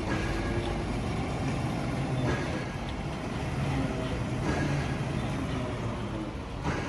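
Heavy construction machinery engines running steadily, with a few knocks or clanks about two, four and a half, and near seven seconds in.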